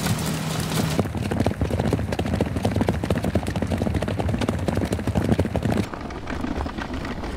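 Several horses walking, many overlapping hoof beats clip-clopping. A steady machine hum gives way to them about a second in, and the hoof beats stop about six seconds in, leaving a quieter background.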